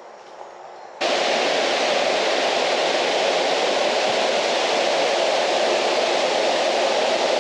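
Steady rushing roar of a waterfall, starting abruptly about a second in. Before it, a quieter steady hiss of rain.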